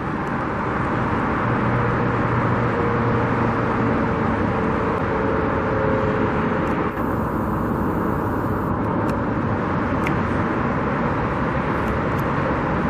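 Steady road traffic noise, with one vehicle's engine hum standing out for a few seconds near the start.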